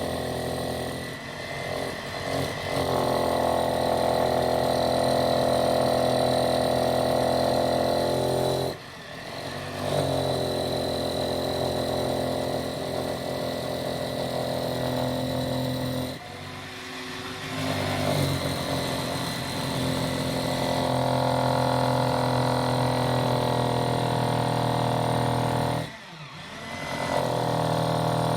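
Electric drill boring into concrete, its motor running steadily under load in long stretches. It eases off briefly three times, about a third, a half and near the end of the way through, then bites in again.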